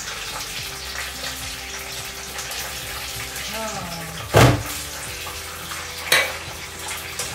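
Kitchen work noise: a steady hiss throughout, with two loud knocks of cookware about four and six seconds in, the first the louder.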